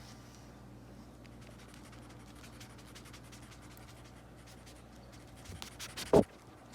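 Guinea pigs making faint, quick scratching and clicking sounds, then one short, loud pitched call about six seconds in.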